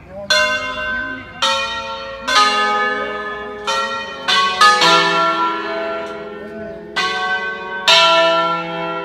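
Five church bells cast by De Poli in 1949 and tuned in E, rung by hand in Brescian concerto style. About nine strikes come at uneven intervals, including a quick run of three near the middle, and each bell rings on and overlaps the next.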